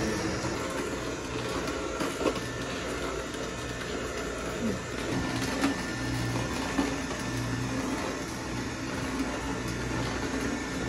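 Nama vertical slow (auger) juicer running steadily, grinding cucumber and lemon. There is a low hum that swells and fades, and a few sharp cracks as pieces are crushed.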